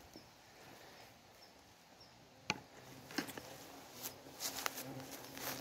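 Footsteps crunching and rustling through dry leaf litter, starting about four seconds in, after a single sharp click about halfway through.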